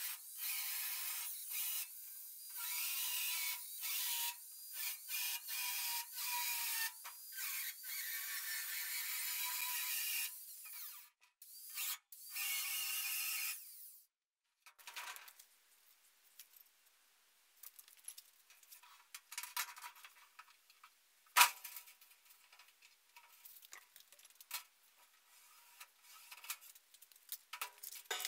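Angle grinder with a cutting disc cutting a 2 mm mild steel sheet in a string of short runs with brief breaks. It stops about halfway through, and after that there are only faint scattered clicks and one sharp knock about three-quarters of the way in.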